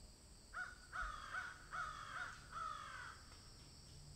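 Crow cawing, four harsh caws in about three seconds.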